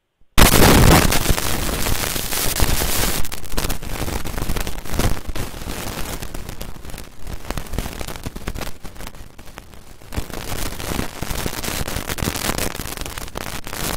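Loud, harsh crackling static that cuts in abruptly about half a second in and carries on, rising and falling unevenly in loudness.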